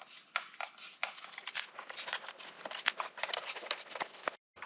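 Screws being backed out of the plastic handle of an old Porter-Cable router with a hand screwdriver: a run of small, irregular clicks and scrapes of metal on plastic.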